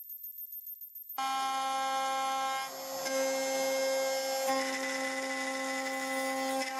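CNC router spindle running an end mill through an aluminium part, a steady whine of several tones over a rough cutting noise. The first second holds only a faint high-pitched pulsing before the full machining sound comes in, and its tone shifts slightly about 3 and 4.5 seconds in.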